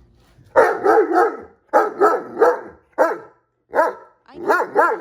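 A Great Dane barking back at a scolding, in a rapid series of about nine short barks that rise and fall in pitch, bunched in twos and threes.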